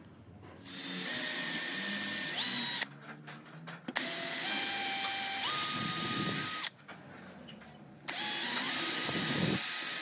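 Power drill running in three bursts of a few seconds each, its motor whine stepping up in pitch partway through each run, as used in installing hinges.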